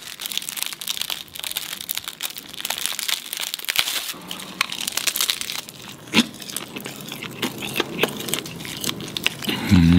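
Plastic film wrapper of an onigiri crinkling and tearing as it is pulled open, then crisp nori seaweed crunching as the rice ball is bitten and chewed.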